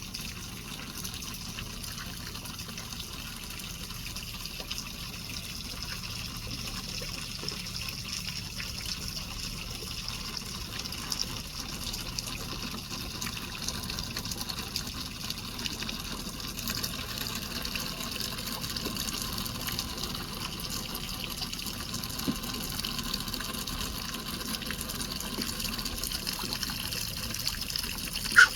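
Steady trickling and splashing water, with one short, sharp squeak near the end.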